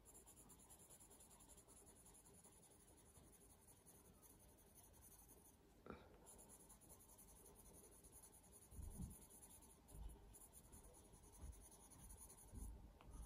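Faint scratching of a coloured pencil shading on cartridge drawing paper in steady back-and-forth strokes, pausing briefly about six seconds in and twice more near the end. A few soft low bumps in the second half.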